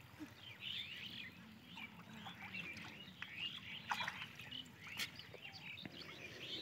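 Faint birds chirping, with many short, quick calls overlapping. Two short sharp knocks come about four and five seconds in.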